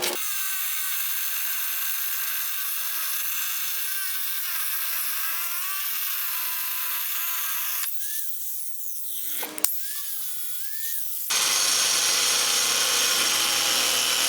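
Angle grinder running with a high whine that wavers in pitch, the sound changing abruptly about eight and again about eleven seconds in.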